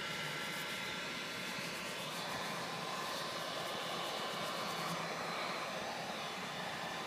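Heat gun blowing steadily, melting wax paste into canvas.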